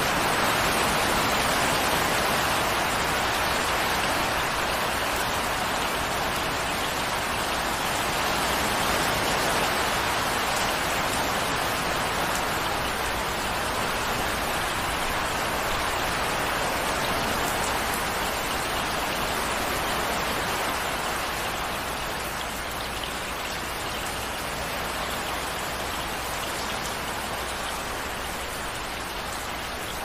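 Steady rain falling: an even, dense hiss of countless drops that eases off a little about two-thirds of the way through.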